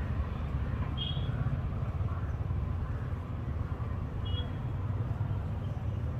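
Steady low outdoor rumble, with two brief high chirps about a second in and again about four seconds in.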